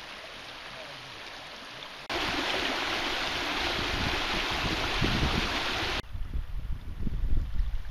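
River water rushing over stones, in three recordings joined by sudden cuts. It starts as a moderate hiss, jumps to a much louder steady rush about two seconds in, and drops to a low, uneven rumble about six seconds in.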